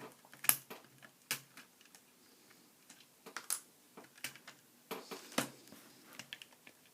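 Lego plastic pieces clicking and clacking as they are handled, in scattered sharp clicks at irregular intervals.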